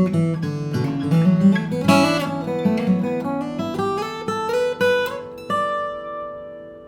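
Morris Special W60 steel-string acoustic guitar played solo: a run of plucked notes and chords, then a last chord about five and a half seconds in that rings out and fades away.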